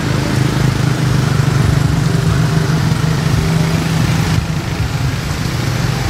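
An engine idling: a steady low hum that eases slightly about four seconds in.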